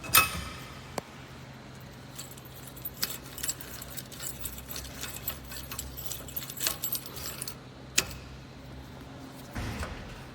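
Loose metal rattling and clinking from an Allen Sports 3-bike hitch rack, a run of small jangling clicks with a sharper knock near the start and another near the end, over a steady low hum. The rattle comes from the wobbly bike-holding arm and hitch connection, which the owner says rattles with every bump.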